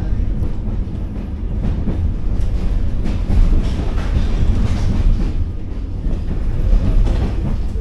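Passenger train running, heard from inside the carriage: a steady low rumble with irregular clatter from the wheels and carriage.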